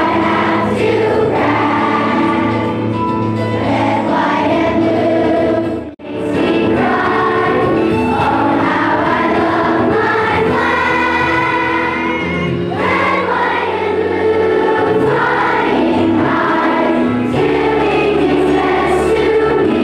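A large group of children singing a song together in unison, with a brief dropout about six seconds in.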